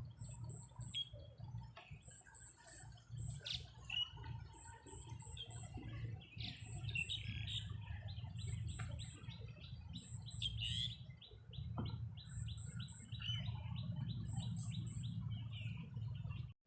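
Small birds chirping: short high notes repeated in groups of three or four, and a quick run of notes in the middle. A steady low rumble of wind on the microphone runs underneath.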